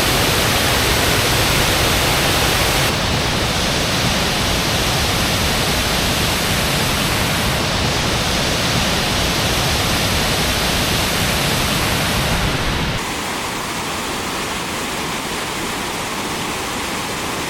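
Steady rushing noise of a waterfall, a dense hiss of falling water. About 13 seconds in it abruptly becomes quieter and loses most of its deep rumble.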